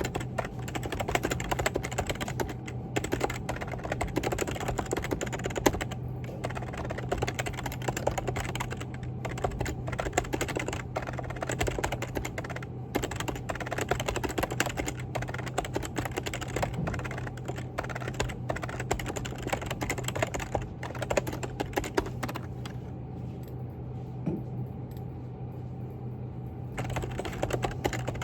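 Typing on a computer keyboard: rapid, continuous keystrokes with a few short pauses, softer for a few seconds near the end, over a steady low hum.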